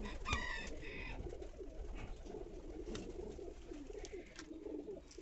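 Domestic pigeons cooing, a continuous low warbling coo, with a couple of brief higher calls near the start.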